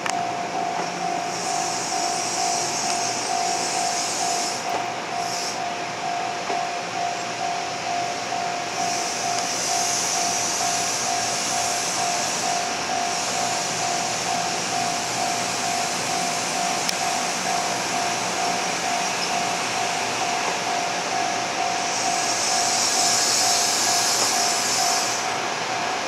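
Japanese level-crossing warning bell ringing in a steady, even dinging while an N700 series Shinkansen trainset rolls slowly across. A low rumble from the train runs under it, and a high hiss from the train swells and fades three times.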